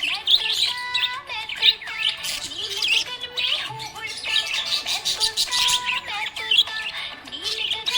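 Budgerigars chirping and warbling: a busy, unbroken stream of quick chirps mixed with held whistles and sliding notes.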